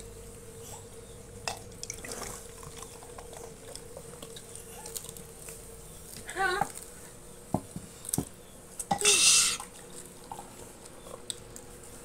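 Scattered light clinks and taps of a fork and drinking glasses on a glass baking dish while children eat, over a faint steady hum. A brief voice sound comes about six and a half seconds in, and a short, loud, noisy sound a little after nine seconds.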